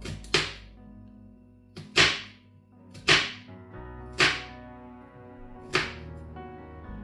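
Soft background music with held notes, over five sharp slapping hits at uneven intervals about a second or a second and a half apart.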